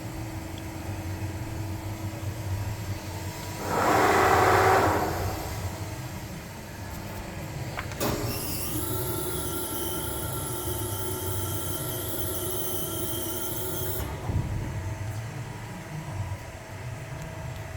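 Beyeler CNC press brake running: a steady low hum, a loud rush of noise about four seconds in, then a steady whine with high hiss from about eight seconds in that cuts off suddenly near fourteen seconds.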